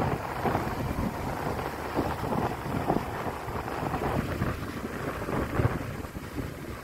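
Wind buffeting a phone's microphone: an uneven low rumble that surges and drops in gusts.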